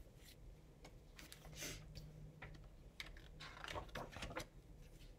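Faint, scattered clicks and a brief rustle about a second and a half in, from a hardcover picture book being handled and opened.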